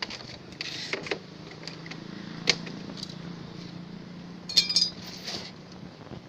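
Loose metal scrap clinking and rattling as it is handled: a sharp clink about two and a half seconds in and a short jangle of several clinks near five seconds, over a faint steady low hum.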